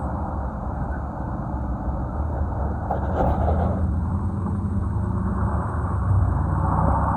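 Four-wheel-drive vehicle's engine running steadily, a low even drone with a hiss of noise above it.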